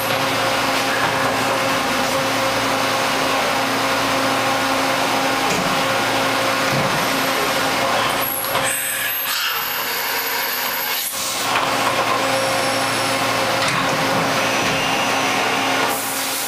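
Large 1993 Niigata HN100B horizontal machining center running, a steady machine hum with several constant tones. For a few seconds around the middle the sound changes, with a high whine, while the spindle head and tool changer move.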